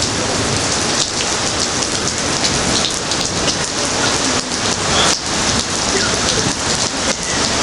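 Steady rain falling, with many sharp taps of close drops hitting.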